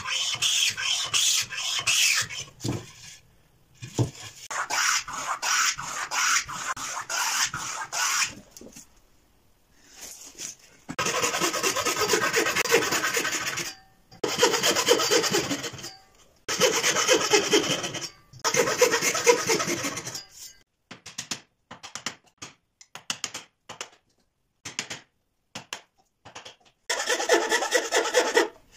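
Hand woodworking tools on wood: repeated strokes of a hand plane shaving a board, then long scraping passes of a frame saw cutting through a board. In the middle comes a run of short light ticks, and scraping strokes return near the end.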